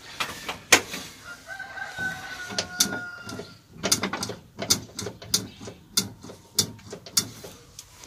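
Irregular clicks and knocks of hand work around the brake pedal in a VW Beetle's metal footwell, coming faster in the second half. A faint held tone lasts about two seconds near the start.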